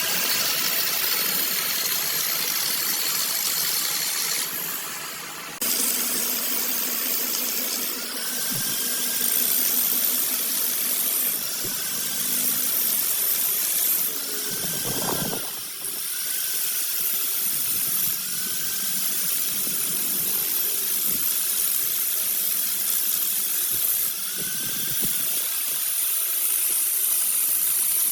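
Workshop machinery running steadily with a strong high hiss, its sound changing abruptly several times.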